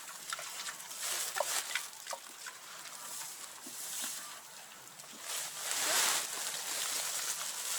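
Straw rustling as it is pulled out of a bale from below, with a swell of rustling about six seconds in. Several short animal calls come in the first couple of seconds.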